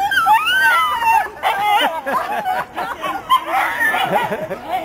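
Dogs whining and yipping, with high gliding whines in the first second or so, followed by short yips and bark-like calls.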